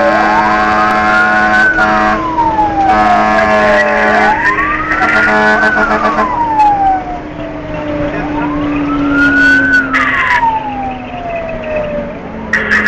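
Fire engine siren wailing, its pitch rising and falling about every four seconds, three full cycles. A steady blaring tone sounds with it for the first four seconds or so.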